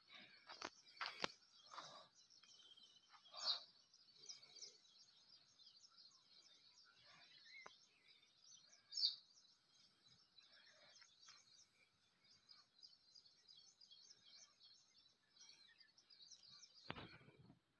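Dry sugarcane leaves rustling and brushing now and then against a faint, steady chorus of high chirping, which cuts off suddenly near the end.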